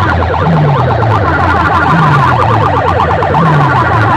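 Competition DJ sound-box speaker rig blasting a siren-like warbling effect, very loud. Under the rapid alarm-like warble, a deep falling bass tone repeats about every second and a half.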